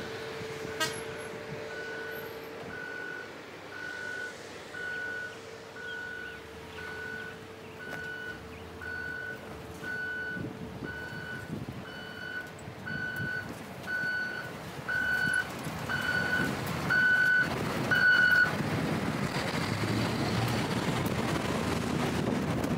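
Vehicle reversing beeper: a long run of short, even beeps a little over one a second, getting louder, stopping a few seconds before the end, over street and traffic noise that grows at the close.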